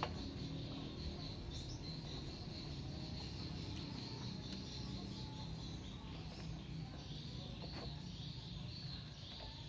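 Steady high-pitched insect chirring in the background over a low hum, with a couple of faint clicks as a screwdriver tightens a screw terminal.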